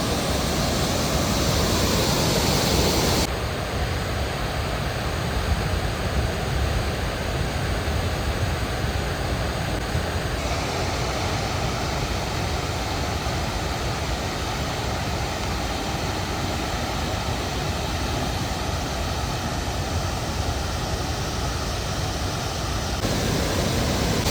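Heavy rush of the Passaic River pouring over Paterson's Great Falls, heard up close in the spray as a steady, loud wash of noise. Its tone changes abruptly three times, as the shots change.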